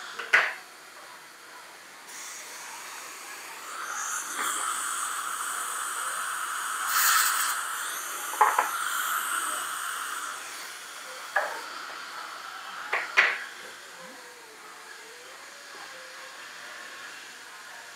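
Steady hiss from dental chairside air or suction equipment, building a few seconds in and fading out after about twelve seconds. A few sharp clicks come from a metal dental instrument touching the implant crown and teeth.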